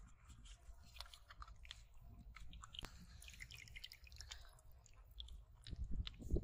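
Thin bamboo sticks being handled and pushed into wet mud: faint squelching with small crackling clicks, over a steady low rumble, getting a little louder near the end.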